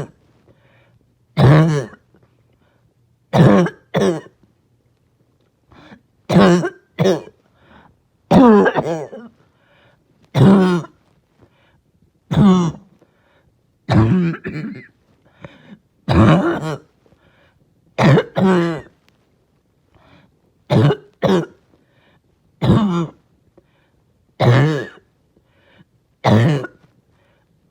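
A person's harsh, barking cough: loud single or double coughs about every two seconds, each with a hoarse pitch to it. It is a bad coughing fit, one they are trying not to choke on.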